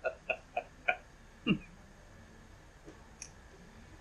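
A handful of short sharp clicks from a cordless drill/driver being handled, a ring on its front end turned by hand through its detents. Four quick clicks come in the first second, then a duller one, and a couple of faint ticks follow near the end.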